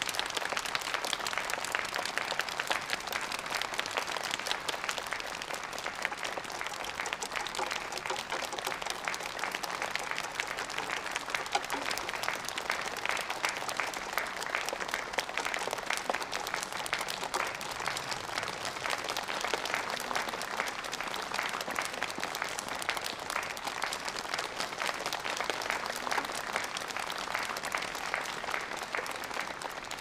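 Large audience in a concert hall applauding steadily, many hands clapping at once in a dense, even patter.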